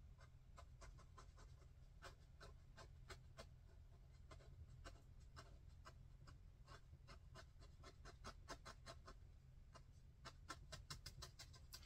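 Faint, irregular taps of a paintbrush dabbing acrylic paint onto canvas, several a second, over a low steady room hum.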